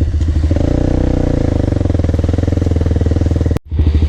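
Off-road bike engine running close by with a steady, fast firing pulse; the sound drops out suddenly for a moment near the end.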